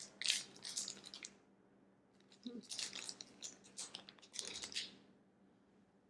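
Close crackly bursts of a snack being handled and eaten: crinkling and crunching in four short spells, with quiet gaps between and a brief hum near the middle.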